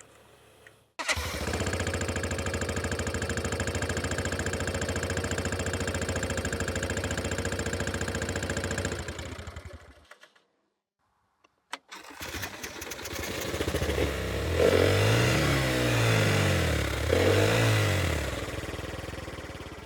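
Indian autorickshaw engine cutting in about a second in and idling steadily for about eight seconds before fading away. After a short gap and a click it runs again and is revved up and back down twice.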